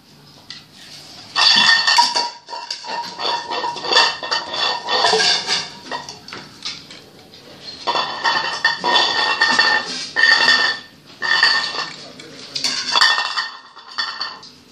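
Metal dishes clattering and scraping on a tiled floor in repeated bursts, with a ringing metallic clank, as the dogs get at their food bowls.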